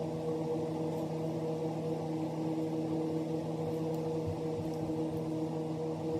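Shop vac motor running steadily, a constant hum, vacuuming loose carpet fibres out of freshly cut carpet seams.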